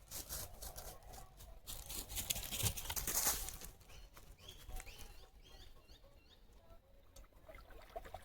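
Rustling and crackling for the first three seconds or so, then a bird chirping repeatedly, a short call about every half second.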